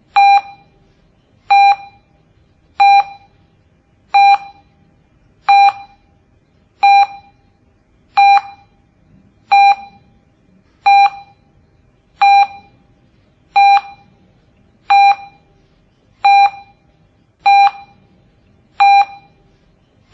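A short electronic beep repeating at an even pace, about once every 1.3 seconds, each one fading quickly.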